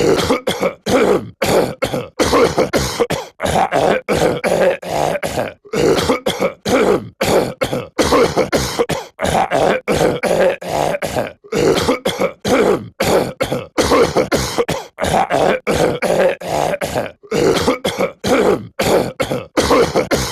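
A male cartoon character's voice clearing his throat and coughing, one short clip looped over and over, several short rasps a second with hardly a pause.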